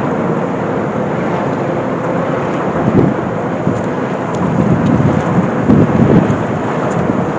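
Loud, steady rushing outdoor noise with low rumbling swells about three seconds in and again between four and a half and six seconds: wind on the microphone mixed with traffic noise from the elevated roadway overhead.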